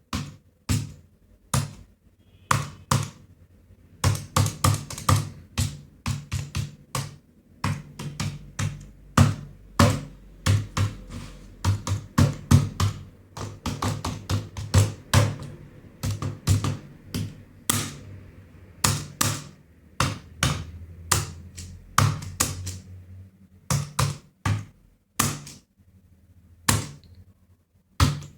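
Typing on a computer keyboard: irregular key clicks, each with a dull low thud, in quick runs broken by short pauses.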